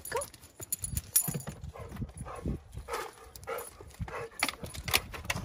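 A dog's paws crunching on gravel in short, irregular steps as it gets out of a car and walks about.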